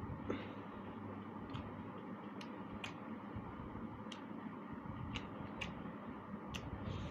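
Close-up eating sounds: a run of irregular sharp clicks, one or two a second, over a steady low background hum.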